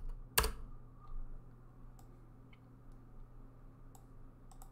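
A computer keyboard keystroke, a single sharp click about half a second in, as the typed command is entered. It is followed by a few faint scattered clicks over a low steady hum.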